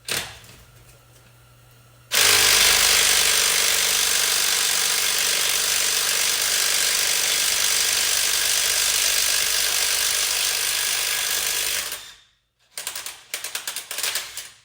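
Impact wrench hammering steadily for about ten seconds on a rusted lug nut or wheel stud, then a few short bursts near the end.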